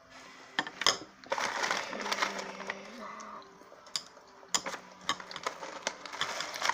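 Eating sounds: a metal spoon clinking against a bowl a few times, with chewing in between.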